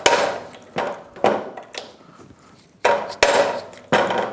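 A mallet strikes a socket about seven times in two runs, with a pause near the middle, each blow ringing briefly. The blows are driving a roller bearing out of a Suzuki GSX-R 1000's aluminium rear cushion lever held in a vise.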